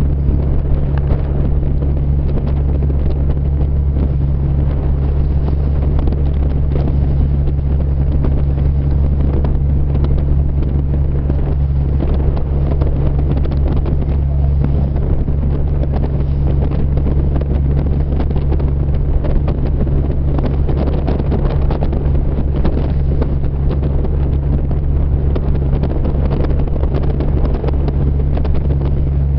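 A boat's engine running with a steady low drone, under wind on the microphone and the rush of water at sea.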